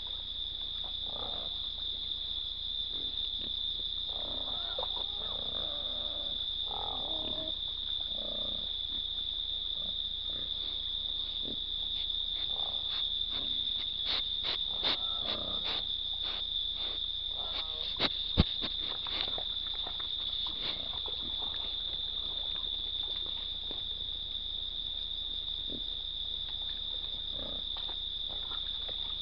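Hogs grunting and snuffling close to a trail camera, then a run of clicks, knocks and scrapes as one noses and rubs against the camera housing, the loudest a sharp knock about 18 seconds in. A steady high insect chorus runs underneath.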